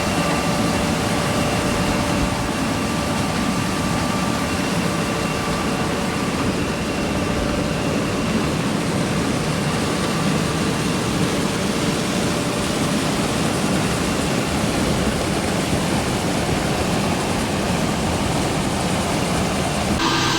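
A machine running steadily: a continuous low rumble with a few faint, steady whining tones above it, changing character abruptly near the end.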